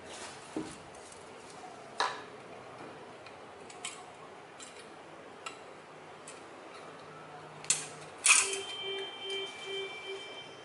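Light clicks and clinks of small aluminium beer-can pieces and hand tools being handled. About eight seconds in comes a louder metallic clink that rings briefly.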